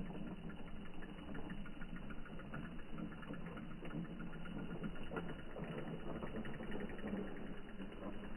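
Small motor of a radio-controlled off-road truck running steadily, with many small clicks and rattles from its drivetrain and wheels.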